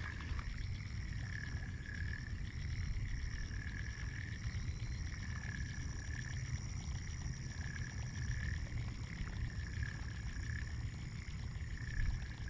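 Spinning reel being cranked to retrieve a topwater lure after a cast: a gear whir that swells and fades with each turn of the handle, about once a second.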